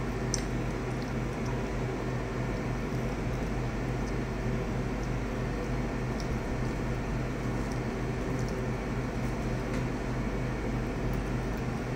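Steady low hum of room machinery, made of several even tones over a soft hiss, with a few faint ticks.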